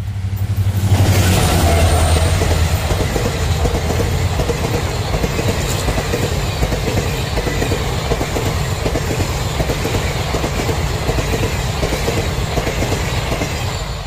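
Diesel-hauled express train passing at speed. The EMD diesel locomotive's low engine drone is strongest in the first couple of seconds, then the passenger coaches rattle past with a steady clickety-clack over the rail joints, fading slightly near the end as the train recedes.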